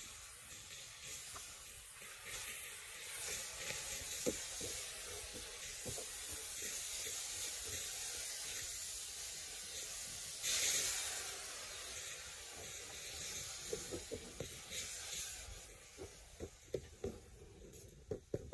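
Food sizzling steadily in a hot steel wok over a wood fire, with a louder sizzling surge about ten seconds in as liquid is poured in from a bamboo tube. A few sharp clicks come near the end.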